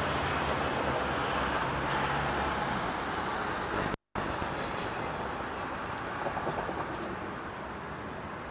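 Street traffic noise from passing cars, with a steady low engine hum in the first few seconds. The sound cuts out completely for a split second about four seconds in at a tape glitch, then continues a little quieter.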